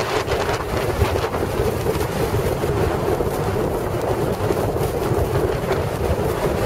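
Strong blizzard wind gusting and buffeting the microphone in a loud, rumbling rush, with a steady hum underneath.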